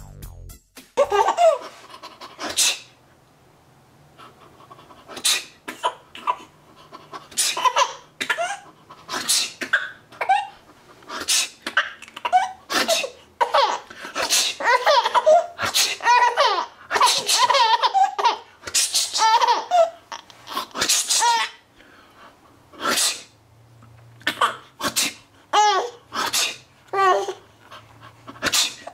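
A father's fake sneezes, over and over every second or two, each set off by a six-month-old baby's bursts of laughter.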